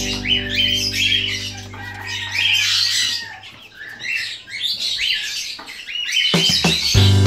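Newly hatched Brahma chicks peeping, with rapid, repeated high chirps throughout. Background music fades out around the middle and comes back loudly near the end.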